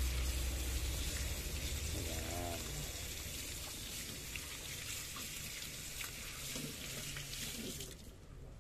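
Kitchen tap running water into a stainless steel sink as espresso-machine group-head parts (shower screen, dispersion screen and spring) are rinsed under it. The water is shut off about eight seconds in.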